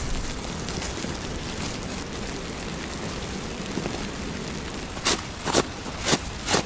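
Footsteps crunching in snow: four steps about half a second apart near the end, over a steady hiss.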